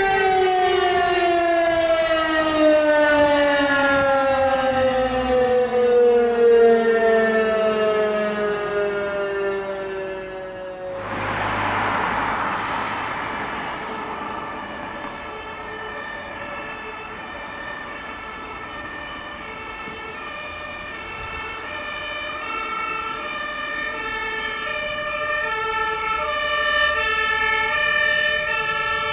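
An alarm siren's tone slides steadily down in pitch as it winds down. About eleven seconds in there is a short rush of noise, then an emergency vehicle's two-tone siren alternates between its two notes, growing louder toward the end.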